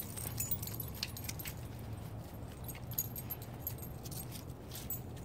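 Light metallic jingling with scattered small clicks, over a steady low rumble.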